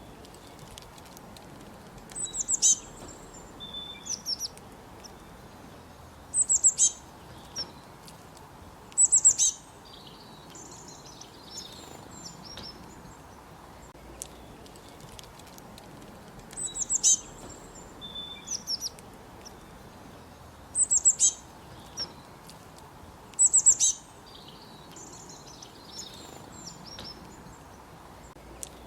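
A squirrel calling in short bursts of rapid, high-pitched chirps, one burst every two or three seconds, with fainter chatter between them.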